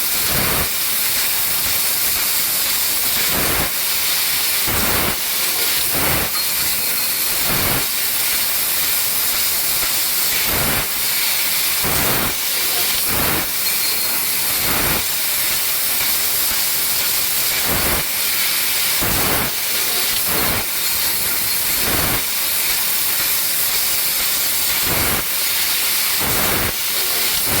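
ACME 6012 fiber laser tube cutter cutting: a loud, steady hiss, broken by short surges about every one to two seconds.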